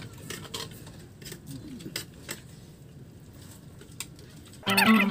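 Light, scattered clicks and taps of tableware as people eat from plates and a metal pot. Near the end a much louder pitched sound with held tones suddenly starts.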